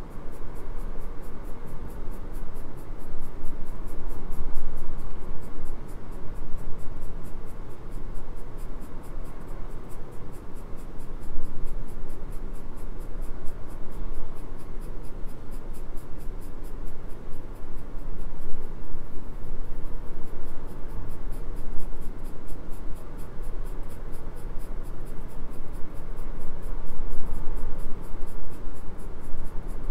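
Graphite pencil scratching across drawing paper in quick, repeated shading strokes.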